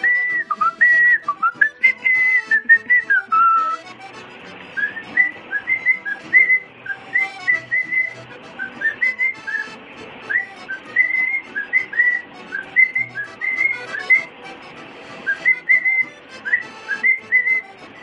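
Male cockatiel whistling: phrases of short, high notes that sweep upward, repeated again and again with brief pauses between phrases.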